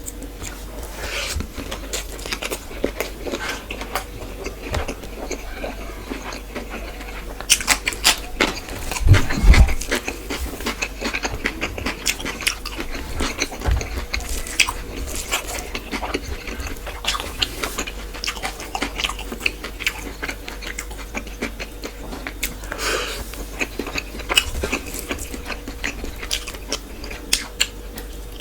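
Close-miked eating: chewing and biting into fish with rice and curry, with many small wet clicks and smacks throughout. A louder cluster of knocks and thumps comes around nine seconds in.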